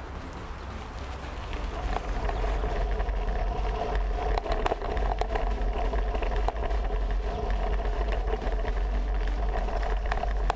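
Riding a mountain bike over a gravel forest track: wind rumbling on the bike-mounted camera's microphone, tyre noise on the gravel, and scattered clicks and rattles from the bike. It gets louder about two seconds in.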